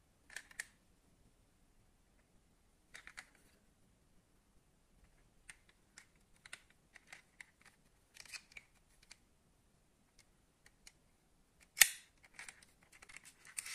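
Scattered small clicks, taps and rubbing of fingers handling a diecast metal toy car, with one sharp click a little before the end followed by a quick run of small clicks.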